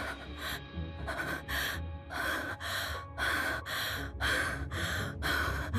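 Rapid, rhythmic gasping breaths from a voice actor, about two sharp breaths a second, in anxious panting, over low background music.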